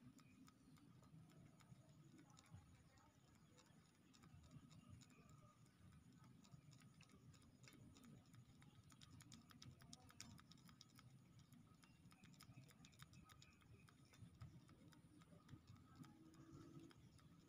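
Near silence: faint room tone with a low hum and scattered faint light ticks.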